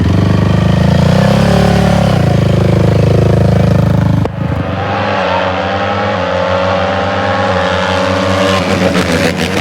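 Dirt bike engines running loudly at high revs. A little over four seconds in, the sound drops off sharply and a somewhat quieter engine note carries on, its pitch shifting slightly.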